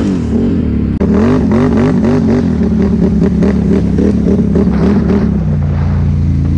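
Can-Am Renegade XMR 1000R ATV's V-twin engine running under way, its revs wavering quickly up and down about three times a second, then holding steady. Near the end the revs drop as the throttle is let off and the machine rolls off freely, with little engine braking.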